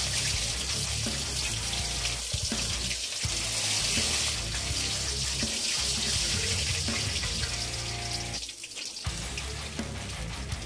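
Background music with a steady hiss under it.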